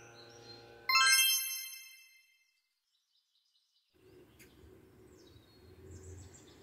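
A steady electrical hum, then a single bright bell-like chime about a second in that rings and fades. After a moment of silence there is quiet outdoor ambience with a few faint bird chirps.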